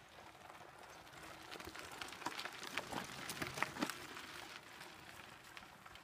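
Mountain bike rolling past on a dirt trail, its tyres crunching and crackling over gravel and dry leaf litter, loudest around the middle as it goes by.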